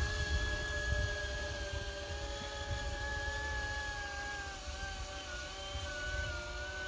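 E-flite V-22 Osprey RC model's small electric motors and propellers whining steadily in flight, the pitch dipping and wavering slightly a little past halfway. A low, gusty rumble of wind on the microphone runs underneath.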